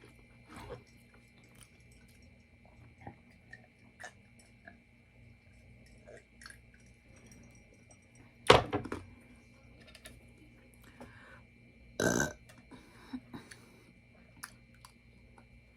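A person burping loudly twice during a meal, the first and louder burp about eight and a half seconds in, the second about twelve seconds in. Faint small clicks of eating come in between.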